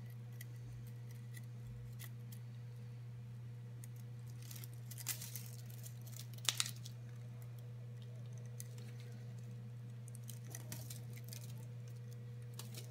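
Quiet handling sounds of a plastic strip and cord being knotted into netting by hand: faint rustles and a few small clicks, one sharper click about halfway through, over a steady low hum.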